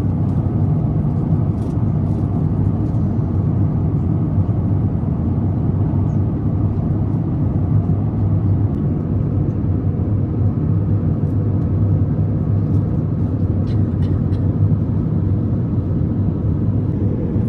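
Steady rumble of an Airbus A350 cabin at cruise: engine and airflow noise heard from inside the passenger cabin, unchanging throughout.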